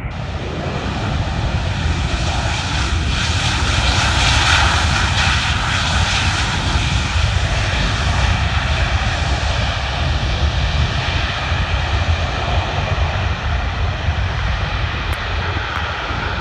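Jet airliner's engines passing close: a loud, steady rush with faint whining tones that swells to a peak about four to five seconds in, then slowly eases off.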